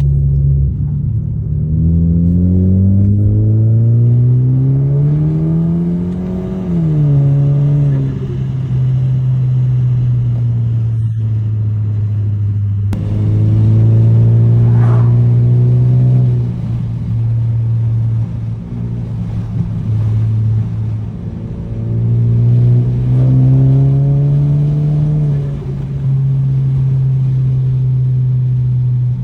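Car engine idling and being revved three times, with a long climb in revs early on and two shorter blips later, each falling back to a steady idle.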